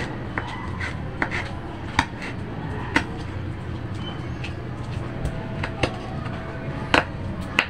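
Small knife slicing red finger chilies on a wooden cutting board: sharp, irregular taps of the blade against the board, roughly one a second, over a steady low hum.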